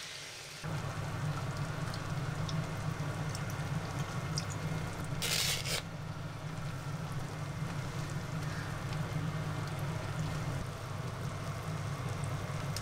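A pan of chicken drumettes, daikon and dashi heating on a gas burner: a steady low rush that starts suddenly about half a second in, with a brief hiss about five seconds in.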